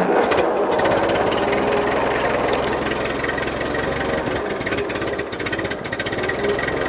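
Old farm tractor's engine running at a steady idle, its firing pulses settling into an even beat about half a second in, just after being started.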